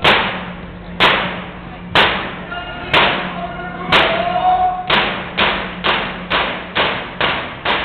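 Yup'ik frame drums struck together in a steady beat, about one stroke a second, then quickening to about two strokes a second before stopping just before the end. Singing is faintly heard between the beats.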